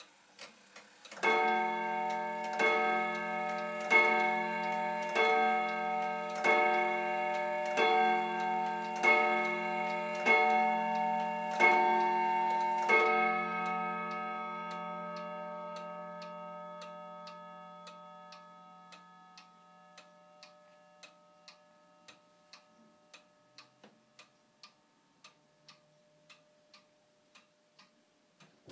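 Vintage French Morbier clock striking the hour: ten ringing gong strokes about 1.3 seconds apart, beginning about a second in. The ringing dies away slowly over the following seconds while the pendulum movement ticks steadily.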